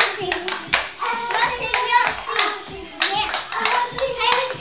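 Irregular sharp hand claps mixed with young girls' voices singing and calling out.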